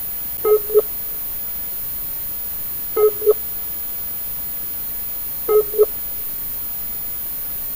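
Skype call ringing tone: a short two-note electronic tone repeated three times, about two and a half seconds apart, over a steady background hiss, while the call waits to be answered.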